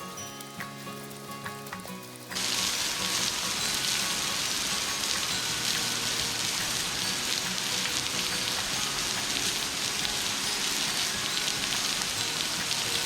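Soft background music, then about two seconds in a loud steady rush of falling water from a waterfall cuts in suddenly, with the music going on faintly beneath it.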